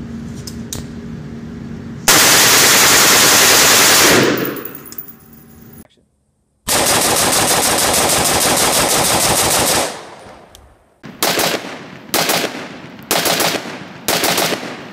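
Rifles fitted with a muzzle brake firing: a string of very rapid shots of about two seconds, then a second string of about three seconds, then five separate shots roughly a second apart, each trailing off in a short echo.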